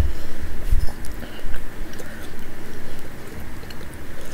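A person eating pozole from a spoon: chewing and mouth sounds with faint clicks, and a few low thumps in the first second and a half.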